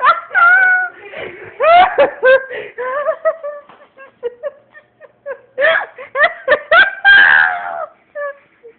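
Two girls' high-pitched laughing and squealing, with bits of unintelligible speech, in a small room.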